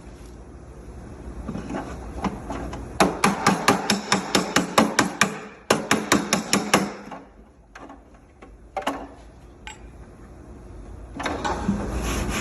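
Body-shop flipper (slapper) striking a car's quarter panel with a dolly held behind it. It goes in quick runs of sharp metal slaps, about six a second, then a few single taps, then a rubbing sound near the end. This is the slap-and-dolly method of drawing low spots out of the panel and stiffening it.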